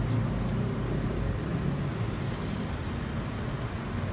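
Steady low rumble of city street traffic, with a couple of faint clicks at the start.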